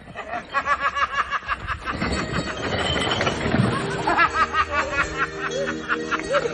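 A person laughing hard in rapid bursts, with a splash of water from someone and a stroller falling into a pond near the middle.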